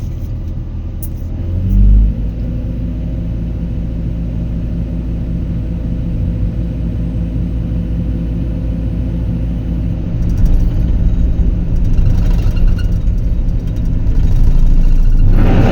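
Heavy diesel engine of an excavator running hard under load, surging and rising in pitch about two seconds in, then holding a steady low rumble. Rattling and clanking build up from about halfway and grow louder near the end.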